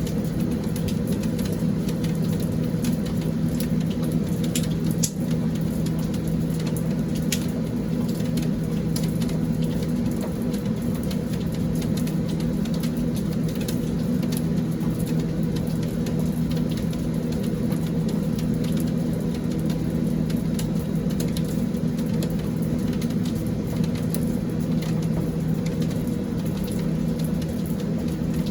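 Steady rain shower falling, with scattered drips ticking, over a constant low mechanical hum.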